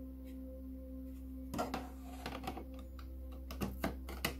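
Plastic clicks and light rattles as a TV's Common Interface slot cover is handled and pressed into place on the back panel, with a few sharper clicks near the end, over a steady low hum.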